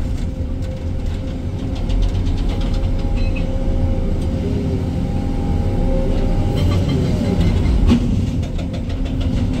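Excavator's diesel engine running at work with a steady low rumble, with faint drifting whining tones over it.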